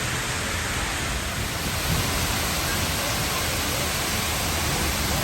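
Loud, steady rush of water pouring down a man-made waterfall, heard close up at its foot.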